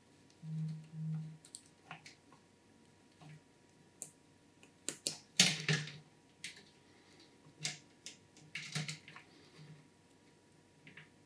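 Scattered clicks, taps and rustles of PC hardware being handled while an NZXT Kraken 360 AIO liquid cooler is fitted into the case, with a louder clatter about five and a half seconds in. Two short low hums come just after the start.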